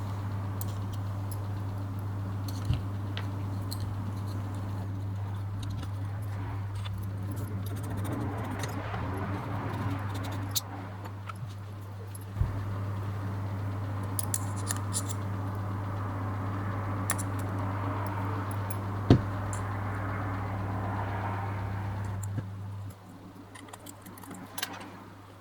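Light metallic clicks and clinks of small metal parts and tools being handled while a lens is taken apart, a few sharper clicks standing out, over a steady low hum that drops away near the end.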